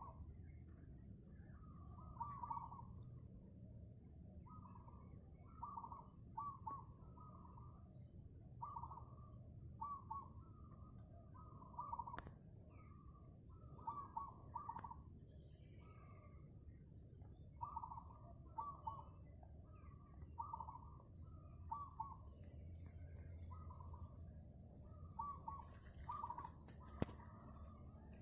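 Zebra dove (merbok/perkutut) cooing: short rolling coo notes in clusters of two to four, repeated every second or two, in a call its keeper finds unusual.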